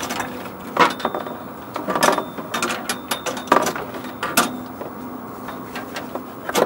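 Hard plastic clicking, knocking and rattling as a Polaris Slingshot's front grille is worked loose by hand, in irregular knocks about a second apart.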